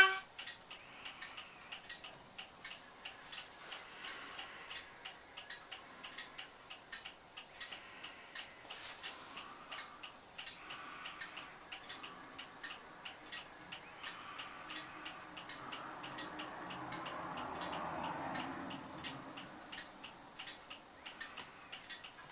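A Class 37 diesel idling, as played by a LokSound v5 DCC sound decoder through a small speaker in an OO gauge model. It is faint, with an even ticking of about two to three beats a second, and a soft rising and falling wash of sound a little past the middle.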